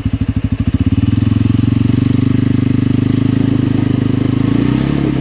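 CFMoto 450's engine pulsing at low revs, then about a second in revving up and held at steady high revs under load while the rear wheels spin. It eases off near the end.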